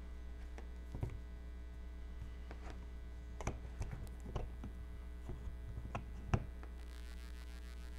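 Steady low electrical mains hum, with scattered light clicks and taps as a small metal DC gear motor and a PVC fitting are handled and fitted together by hand; the sharpest tap comes a little after six seconds in.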